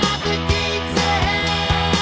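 Rock song with electric guitars, bass and drums, the drums striking in a steady beat.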